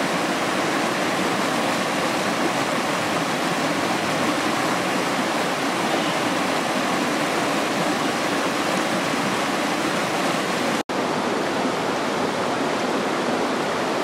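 Mountain stream water rushing over rocks in a small cascade, a steady, even sound of churning water. It cuts out for an instant about eleven seconds in, then carries on.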